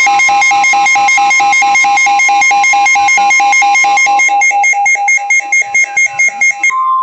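NOAA Weather Radio warning alarm tone, a steady 1050 Hz tone, sounding under rapid electronic beeping from weather-alert receivers going off together. The beeping thins out and stops near the end while the steady tone carries on.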